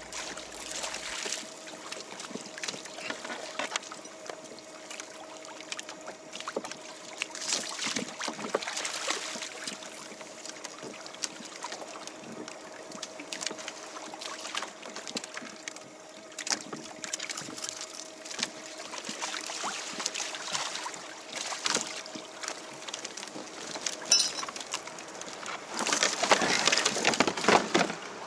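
Water sloshing and splashing against a kayak's hull, over a steady electric motor whine that stops a few seconds before the end. In the last couple of seconds a louder rush of water and wind takes over.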